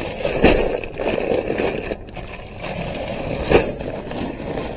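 Heavy sacks of animal feed being handled: two heavy thuds about three seconds apart, with the sacks scraping and rustling between.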